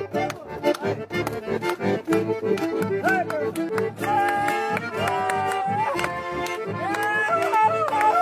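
Button accordion playing lively folk music, with acoustic guitars strumming a steady beat.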